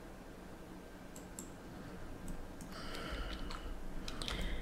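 A few separate, faint computer mouse and keyboard clicks.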